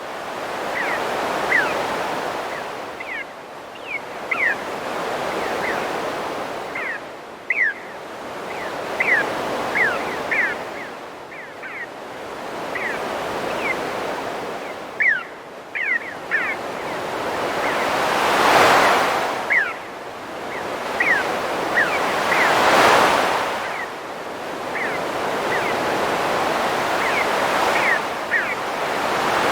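Ocean waves breaking on a beach, the surf swelling and falling every few seconds, with many short high bird chirps throughout.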